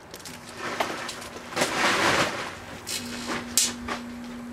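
Rustling and several knocks and clunks, loudest about two seconds in, like a person climbing into a vehicle and shutting its door. About three seconds in a steady low hum starts and keeps going: the microwave switched on by remote to cook the aerosol can.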